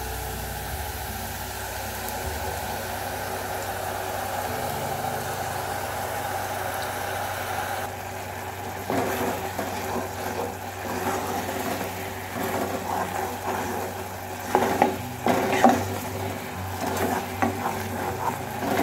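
Jackfruit pieces frying in ghee in a pot, a steady sizzle under a low hum. After about eight seconds it is jackfruit cooking in melted jaggery, bubbling while a wooden spatula stirs and scrapes the pot in irregular knocks, loudest in the last few seconds.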